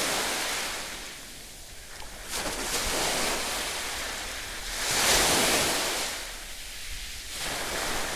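Sea waves washing onto a beach: a steady rush that swells and fades every two to three seconds, loudest about five seconds in.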